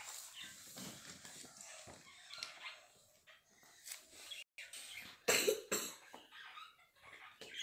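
Paper sticker sheets and book pages rustling and crinkling as they are handled and stickers peeled off, with a short, louder noise about five seconds in.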